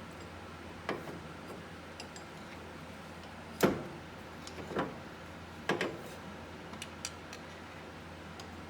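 A handful of scattered sharp metal clicks and knocks, the loudest about three and a half seconds in, as a flathead screwdriver pushes the brake pad back into the UTV's parking brake caliper.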